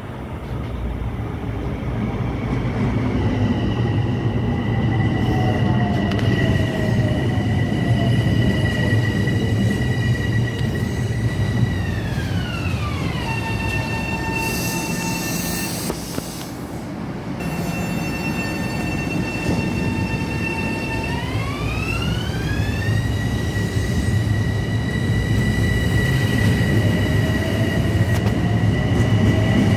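Long Island Rail Road M7 electric train running at the station, its propulsion whine sounding as two high steady tones over the rumble of wheels on rail. About twelve seconds in the whine glides down in pitch and holds lower, with a short hiss. It then glides back up a little past twenty seconds.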